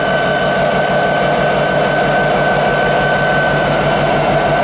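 Diesel locomotive running steadily at idle close by, a low even throb with a constant high-pitched whine over it.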